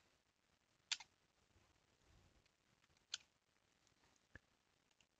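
Computer mouse clicking: two sharp clicks, about a second in and about three seconds in, then a fainter tick near the end, over faint room hiss.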